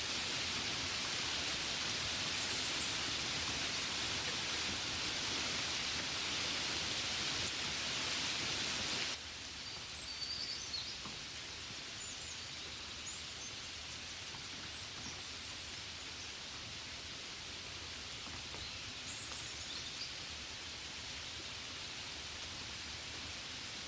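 Steady rain hiss that drops off abruptly about nine seconds in to a softer, quieter rain, with a few high bird chirps over it afterwards.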